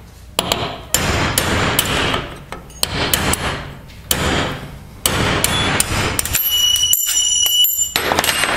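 Hammer blows driving a broken-off piece out of an AMC Javelin steel door hinge clamped in a bench vise: a run of irregular sharp metal strikes, with a ringing metallic note near the end.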